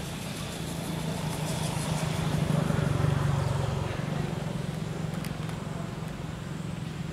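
A low, steady motor-vehicle engine hum that swells louder a little over two seconds in and then eases back.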